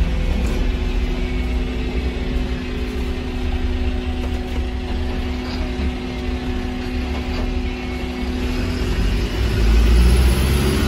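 Volvo B5LH hybrid bus heard from inside the passenger cabin while on the move: a low drivetrain rumble with a steady hum over it. The rumble grows louder about nine to ten seconds in as the steady hum fades.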